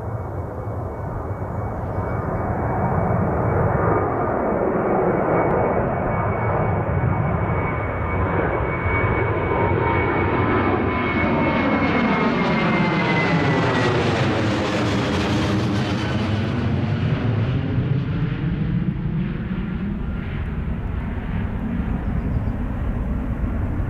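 Jet airliner passing close overhead: a high engine whine over rushing noise builds to a peak about halfway through, the whine dropping in pitch as the aircraft goes by, then trailing off into a low rumble.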